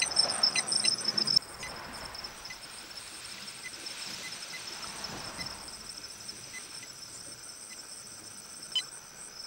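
A brief jangle of keys and rustle of handling for about the first second and a half. Then a quiet parked car with a faint, steady high-pitched chirring.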